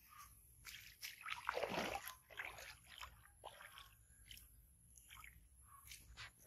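Faint rustling and crunching as a baby monkey picks leaves and chews them, in uneven bursts, busiest from about one to two seconds in.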